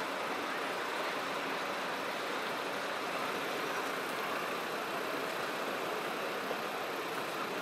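Steady, even vehicle noise with no distinct events: the hum of standing trams mixed with street traffic.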